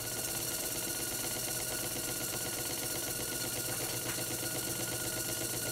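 Model Markie traction engine running on compressed air: a steady, rapid, even exhaust beat with air hiss and the whirr of the spinning crankshaft and valve gear.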